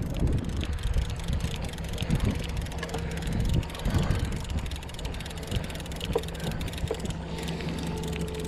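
Mercury outboard motor running steadily at trolling speed, a low even hum, with wind buffeting the microphone.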